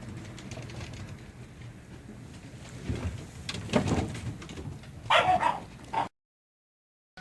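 Jindo dogs play-fighting, with scuffling and a short, high-pitched dog yelp about five seconds in. The sound cuts off abruptly near the end.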